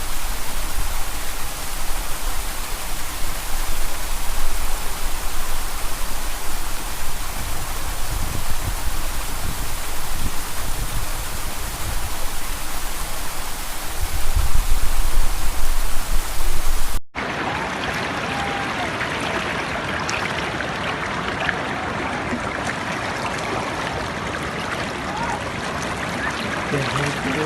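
Waterfall water rushing in a steady hiss. For the first part an uneven low rumble runs under it. About two-thirds of the way in the sound cuts abruptly to a steadier, slightly duller rush.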